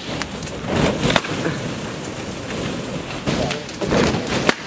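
Latex balloons jostling, rubbing and knocking against each other and the trampoline as someone bounces through them, with several sharp knocks.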